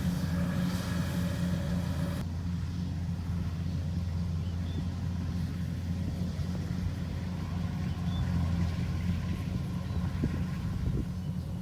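Rice combine harvester's diesel engine running steadily with a deep, even drone; the higher-pitched clatter drops away about two seconds in.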